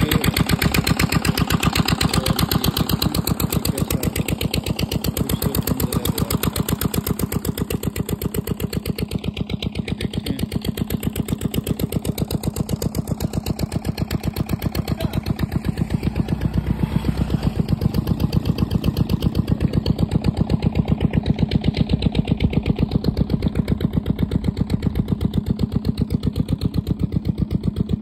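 Stationary engine driving an irrigation water pump, running steadily with a rapid, even chug.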